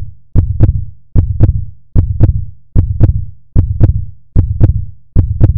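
Heartbeat sound effect: deep, loud double thumps (lub-dub) repeating steadily about every 0.8 seconds, roughly 75 beats a minute.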